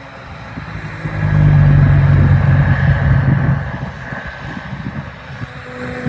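A vehicle engine grows loud about a second in, holds for about two seconds with a deep steady hum, then fades back, like a close pass-by.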